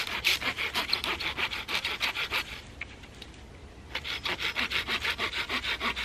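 Folding hand saw cutting through a wooden pole in quick, even push-pull strokes, several a second. The sawing stops for about a second near the middle, then picks up again as the pole is turned.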